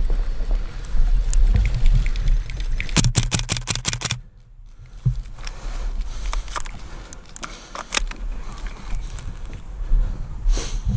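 An airsoft rifle fires a rapid burst of about eight shots, about three seconds in, with a few scattered single shots later. Under them runs a steady low rumble of movement and wind on the microphone.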